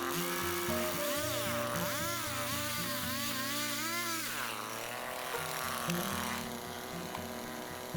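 Background music with steady held notes, and a petrol chainsaw whose engine pitch rises and falls several times, as if the saw is revving and bogging in a cut, for a few seconds.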